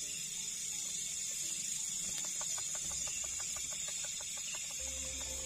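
Steady high buzz of night insects, with a rapid run of clicking, clucking pulses, about ten a second, from an unseen animal for a couple of seconds in the middle. A steady low tone comes in near the end.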